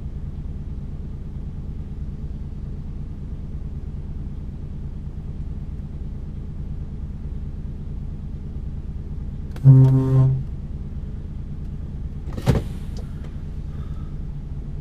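Lorry's diesel engine idling steadily, heard from inside the cab, with a short horn blast of about a second just under two-thirds of the way through, and a single sharp click a couple of seconds later.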